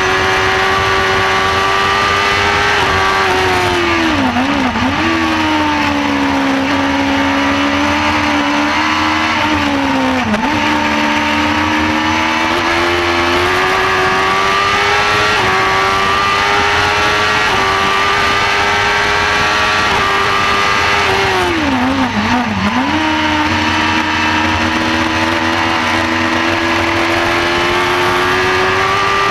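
Shortcar race car's engine running hard at high revs, heard from the cockpit. The revs dip sharply and climb back about 4 and 22 seconds in, with a shorter dip about 10 seconds in: gear changes through the corners.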